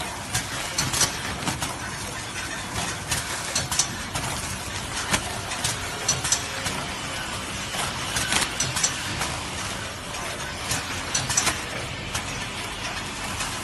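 Film-packaging machine on a kitchen towel line running: a steady mechanical hum with frequent irregular clicks and clatters from its moving parts.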